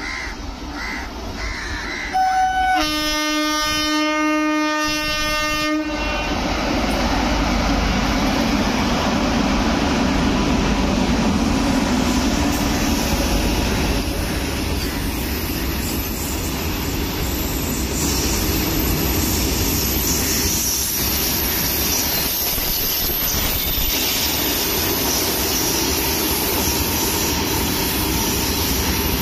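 An electric locomotive's horn gives a short toot a couple of seconds in, then a long blast of about three seconds. After it comes the steady rumble and wheel clatter of loaded goods wagons rolling past close by, with a thin high whine from the wheels in the second half.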